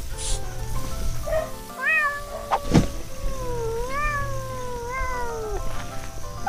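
A cat meowing: a short rising meow about two seconds in, then a long wavering meow that rises and falls for a couple of seconds. Between them a sharp knock, the loudest moment. Background music plays underneath.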